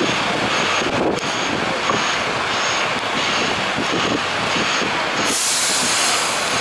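A stationary fire engine idling, a steady vehicle rumble mixed with street noise. A faint, high, short beep repeats about twice a second, and a loud hiss starts about five seconds in.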